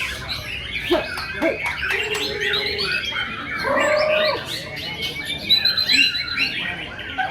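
Several white-rumped shamas (murai batu) singing at once: dense, overlapping fast whistles and chirps, with lower wavering notes twice near the middle.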